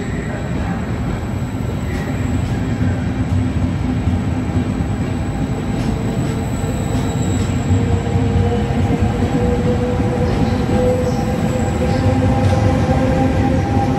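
Trenitalia Vivalto double-deck regional train pulling out of the station, its coaches rumbling past at low speed. From about halfway through, a whine rises slowly in pitch as the train gathers speed. Near the end the electric locomotive at the rear of the train goes by.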